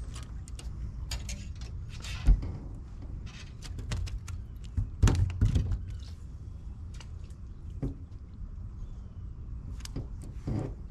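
Knocks and thumps from gear being handled in a fishing boat: one sharp thump about two seconds in, a cluster of knocks about five seconds in, and scattered clicks, over a steady low rumble.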